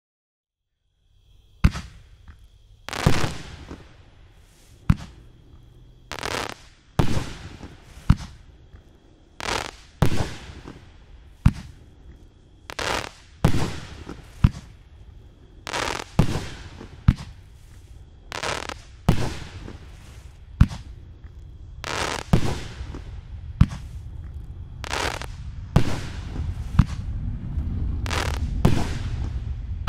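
A 500-gram, 12-shot aerial firework cake firing shot after shot, starting about a second in. Each shot is a sharp launch thump followed a second or so later by the louder bang of the shell breaking overhead. Rumbling crackle builds in the last few seconds.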